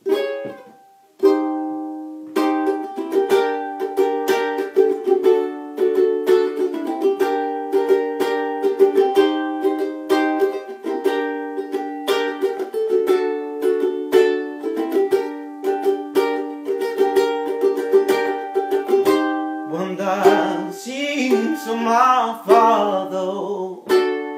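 Ukulele strummed in chords: two single strums, then steady rhythmic strumming. Near the end a voice comes in singing over it.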